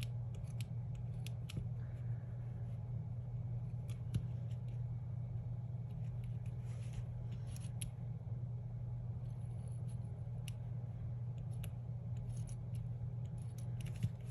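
Scattered small clicks and taps of hands working with paper craft supplies over a steady low hum.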